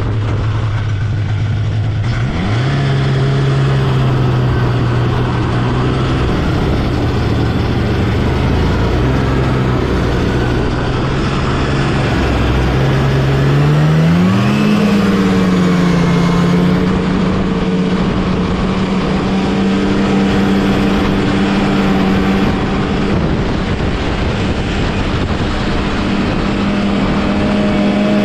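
1979 Scorpion Whip TKX snowmobile's two-stroke engine running under way. Its pitch climbs about two seconds in and again about halfway through, then holds steady, over a steady rush of noise.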